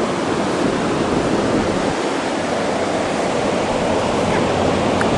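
Ocean surf washing up on a sandy beach: a steady rushing noise.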